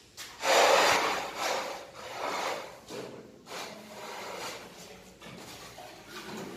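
A run of rough scraping strokes on wet cement-sand mortar, the loudest about half a second in, followed by several shorter, weaker ones.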